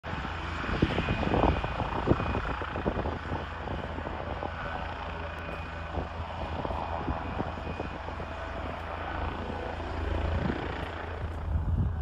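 Police helicopter running on the snow with its rotor turning, a steady drone. A few thumps stand out in the first couple of seconds.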